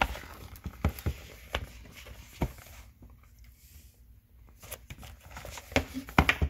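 A recipe binder and its box being handled on a wooden floor: a string of light knocks and rustles, with a quieter pause in the middle and a cluster of sharper knocks near the end.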